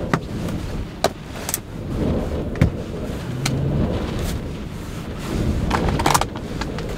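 Storm wind and rain buffeting a parked SUV, a low rumble that rises and falls, with several sharp knocks as plastic food tubs and produce are set down on a wooden counter inside.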